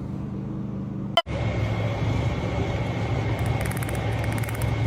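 Steady low mechanical hum, broken by a click and a sudden cut about a second in, after which a steady hum carries on with a thin high tone above it.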